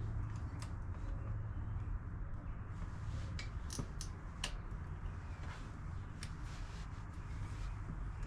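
Small parts clicking and tapping as a carburetor is fitted back onto a Husqvarna engine: about half a dozen sharp clicks, most of them close together near the middle, over a steady low hum.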